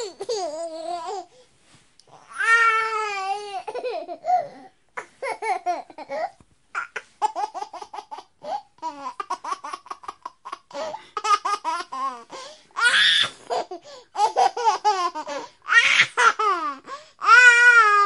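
A baby laughing and babbling: runs of quick, repeated laugh pulses between longer drawn-out vocal sounds that waver up and down in pitch, with brief pauses in between.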